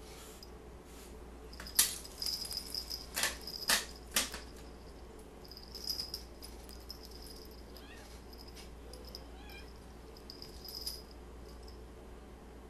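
Two young cats play-fighting in a fleece pet bed: scuffling, thumps and claws scratching on the fabric, loudest from about two to four and a half seconds in. A light jingling, which matches the collars the cats wear, comes in short spells with the scuffles.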